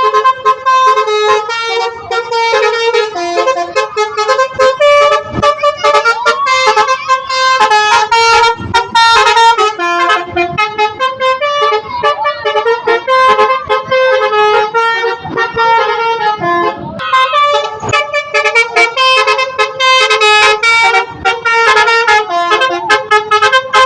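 Bus 'telolet' horn: a multi-tone musical air horn playing quick runs of short notes at changing pitches, over and over, with a brief break about seventeen seconds in.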